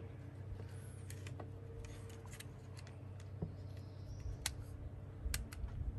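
Scattered light clicks and taps of small pistol parts being handled as a SIG P320 takedown lever is worked into the fire control unit and grip module and will not seat, over a faint steady hum.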